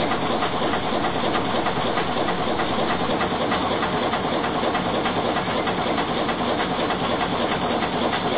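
1929 Gardner 3J5 diesel marine engine running steadily, with a fast, even mechanical clatter.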